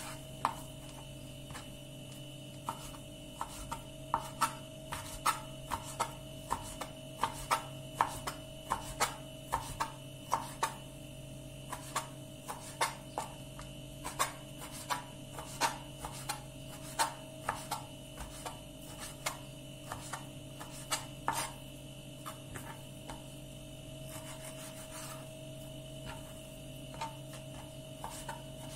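Kitchen knife cutting raw lamb into small cubes on a plastic cutting board: irregular knocks of the blade on the board, about one or two a second, with softer slicing between them, thinning out over the last several seconds. A faint steady hum runs underneath.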